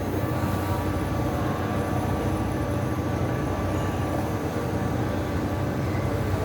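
Steady machine hum, low and even, with a thin high tone held throughout.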